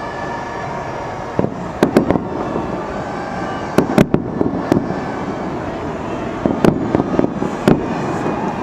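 Fireworks going off: irregular sharp bangs and cracks, in clusters about two, four and seven seconds in, over steady background noise.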